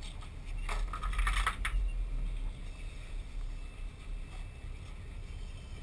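Steady low rumble of the boat's idling engine, with a brief clatter from the deck about a second in.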